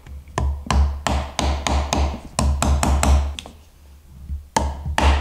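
Small hammer tapping the glued finger joint (arare-gumi) of a small wooden box closed: a quick run of light wood-on-wood knocks, about four a second, that stops for about a second and resumes near the end.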